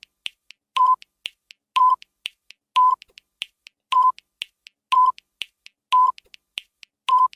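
Countdown timer sound effect: a short electronic beep once every second, with about three light ticks between each beep.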